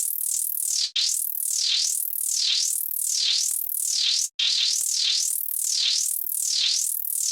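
Arpeggiated synthesizer notes from a Native Instruments Maschine+, high-pitched, with the pitch sliding up and down over and over while the touchstrip bends it. The sound cuts out briefly twice, about a second in and just past four seconds.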